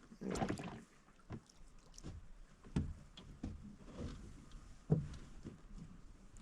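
Scattered light knocks and clicks in a small fishing boat while a hooked crappie is brought in, with a sharper knock about five seconds in.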